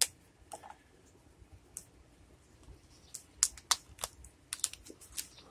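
Plastic packet of soft-plastic worm baits being opened and handled: scattered sharp crinkles and clicks, coming thickest in a quick run past the middle.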